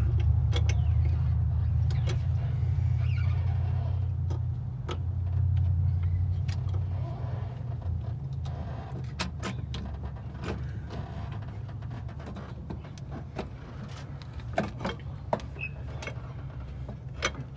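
Metal clicks and clinks of a ratchet and wrench working the hold-down nuts of a carburetor, irregular and coming thicker in the second half, over a steady low rumble that eases off about seven seconds in.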